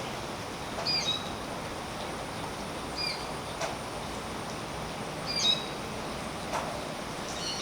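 Steady rain falling on tree leaves, with a few heavier drops landing sharply. A bird calls with short high chirps about every two seconds.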